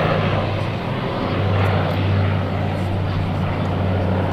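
Lockheed Super Constellation's four Wright R-3350 radial piston engines droning steadily as the airliner flies past, with the low drone growing stronger about a second in.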